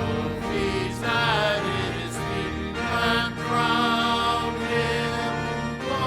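A hymn sung with instrumental accompaniment, the voices holding long notes.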